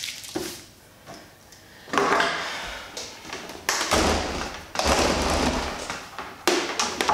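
Handling noises from a fully automatic coffee machine being turned around and slid on a stone worktop: a few scrapes and bumps of its plastic housing, the longest about four seconds in.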